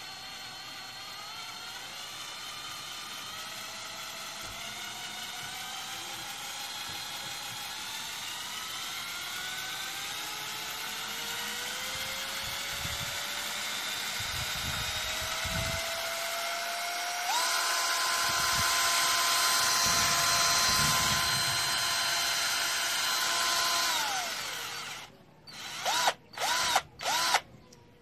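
KingPower X2002 16.8 V cordless drill running with no load, its motor whine speeding up slowly over many seconds, then jumping to a higher steady speed about two-thirds of the way in and holding before winding down. Near the end, four short quick spins.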